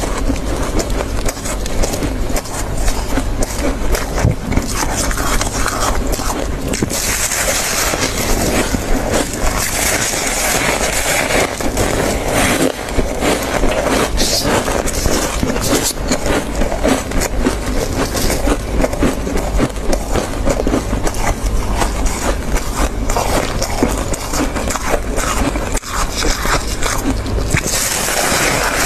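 Close-miked crunching and chewing of freezer frost, along with gloved hands scraping and scooping frost from the freezer.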